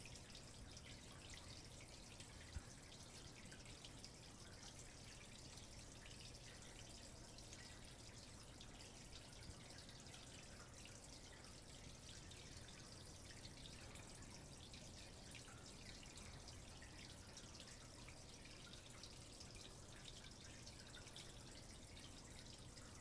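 Near silence: faint steady hiss with a low hum, and one small click about two and a half seconds in.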